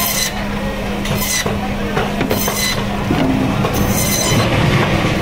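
Electric band saw (bone saw machine) running with a steady hum while rohu fish is pushed through the blade; four short, high-pitched cutting noises, about one every second and a bit, as the blade slices through the fish's flesh and backbone.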